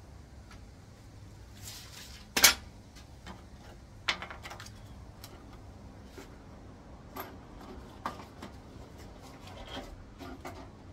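Metal parts and hand tools clinking and knocking against each other, with a sharp clank about two and a half seconds in, another about four seconds in, and lighter clicks and taps between.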